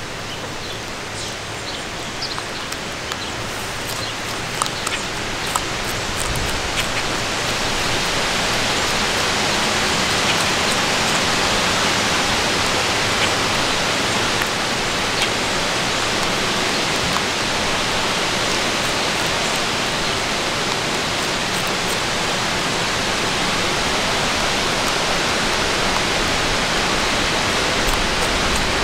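Steady rushing wind, building over the first several seconds and then holding steady, with a few faint clicks early on.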